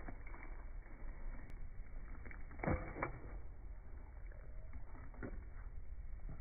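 A dog chewing a chicken nugget from a hand and licking the fingers: short mouth smacks and clicks, with two sharper smacks close together a little under three seconds in.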